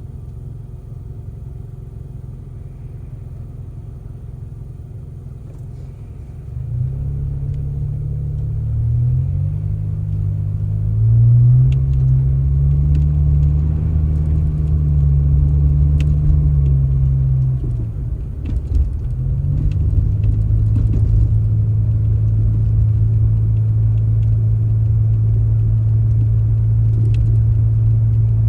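A motor engine running low, then speeding up about six seconds in. Its pitch rises and falls over the next several seconds, drops briefly, then holds steady at a higher speed.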